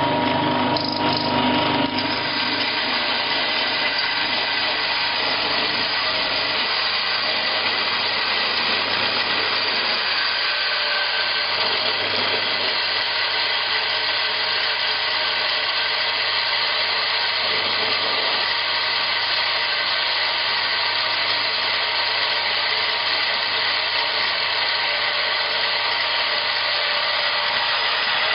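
Small stainless steel cocoa grinder running steadily, a constant machine whine with a hum underneath, settling slightly about two seconds in.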